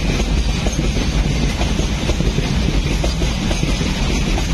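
Container freight wagons rolling past without stopping: a steady rumble with a dense clatter of wheels over the rail joints.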